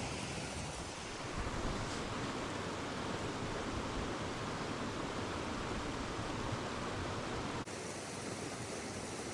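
Steady outdoor rushing noise, like running water or wind, that changes abruptly at a cut about three-quarters of the way through.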